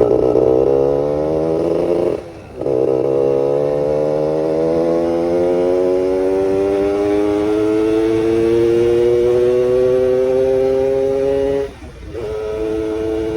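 Yamaha F1ZR 110cc two-stroke single, with its carburetor set rich, accelerating through the gears. The pitch climbs, falls sharply about two seconds in at a gear change, climbs slowly for about nine seconds, falls again near the end and then holds steady.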